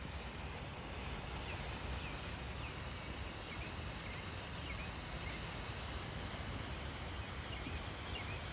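Steady, low outdoor background noise with faint short chirps, like distant birds, scattered through it.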